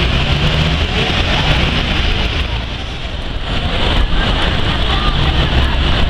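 Busy city-centre street sound: buses and cars running through the square, mixed with the chatter of a dense crowd of pedestrians. The low engine hum eases a little about halfway through and comes back near the end.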